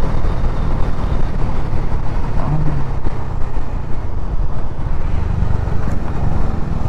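Motorcycle riding noise: wind buffeting the microphone over the running engine of a Bajaj Dominar 400 at road speed, a dense, steady low rumble.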